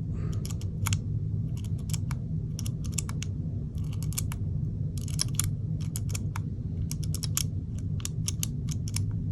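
Irregular small clicks and taps of hard parts being handled in an open airsoft gearbox, some in quick clusters, over a steady low hum.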